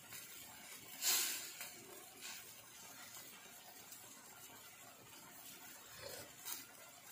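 Fish in tomato sauce simmering in a stainless steel pan: a faint steady hiss and sizzle with occasional pops, and a louder hissing spatter about a second in.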